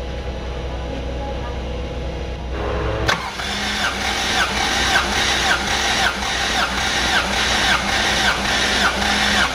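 Starter motor cranking a Toyota 16-valve four-cylinder engine with its spark plugs removed, starting suddenly about three seconds in and turning over in an even rhythm of about two pulses a second. The cranking is done to blow out oil that had leaked past worn seals into the spark plug wells and combustion chambers.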